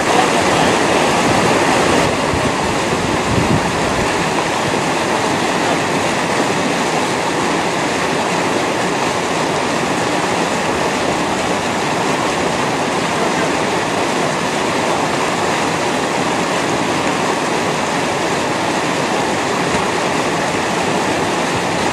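Steady rush of flowing river water, an even noise with no distinct events.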